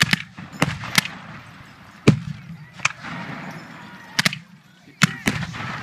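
Black-powder muskets firing blank charges in a ragged, scattered volley: around nine sharp shots at uneven intervals, each with a short echo.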